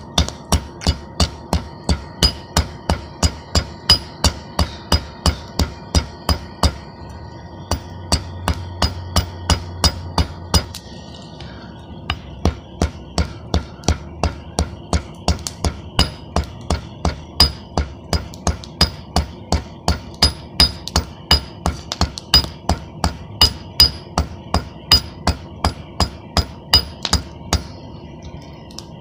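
Hand hammer striking a red-hot steel bar on a flat anvil plate in a steady rhythm, about two to three blows a second, each blow ringing. The bar is being drawn out to a point to forge a hole punch. There is a short pause about eleven seconds in.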